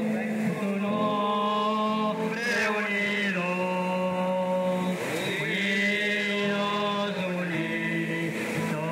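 Group of men singing a slow hymn, holding long notes, with a new phrase beginning about every two and a half seconds.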